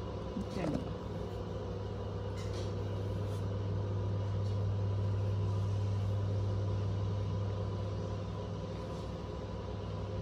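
A steady low hum, with a brief falling squeak about half a second in.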